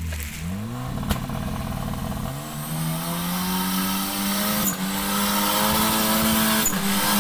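An off-road 4x4's engine revving up under load, its pitch climbing over the first few seconds and then held high and getting louder, with two brief dips in the second half.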